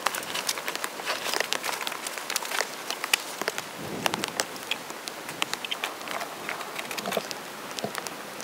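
Wood campfire of sticks and twigs crackling, with many irregular sharp snaps over a steady hiss.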